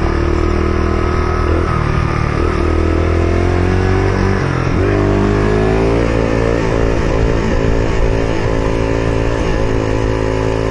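Yamaha XT250 single-cylinder four-stroke motorcycle engine accelerating hard as the rider lifts the front wheel for a wheelie. Its pitch climbs through each gear, with shifts about two seconds in and again about five seconds in.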